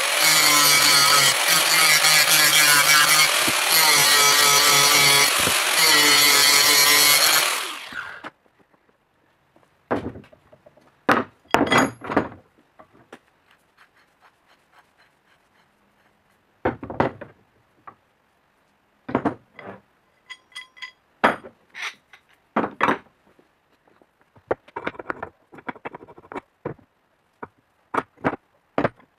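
Angle grinder running under load against the top of the swivel stool's metal column for about seven seconds, then switched off and winding down. Scattered metallic knocks and clinks follow as the stool's threaded screw post and other metal parts are handled and set into the column tube.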